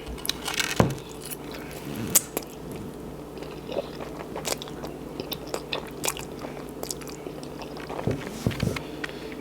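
A person chewing and biting food close to the microphone: irregular wet mouth clicks and smacks, with a few crunchy bites, over a faint steady hum.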